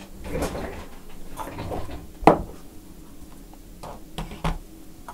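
Objects being handled and set down on a workbench: some rustling and clatter, one sharp knock a little over two seconds in, and a few lighter knocks near the end.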